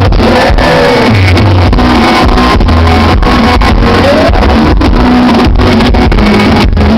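Live sertanejo concert music, a band with singing and guitar, recorded very loud and overloaded with strong bass.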